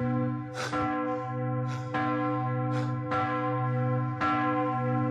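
Large tower bell struck over and over, roughly once a second, its deep hum ringing on between strokes, rung as an alarm while the town burns under a dragon attack.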